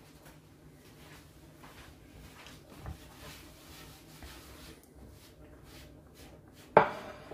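Faint handling noises, a small knock about three seconds in, then near the end a single sharp knock as a ceramic plate is set down on a bamboo chopping board.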